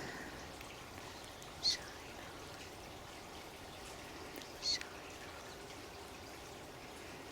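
Steady trickling water with a bird giving two short high chirps, one about a second and a half in and another a few seconds later.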